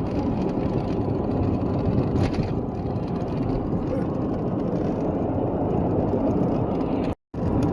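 A car driving, heard from inside the cabin: a steady rumble of engine and road noise. It cuts out for a split second near the end.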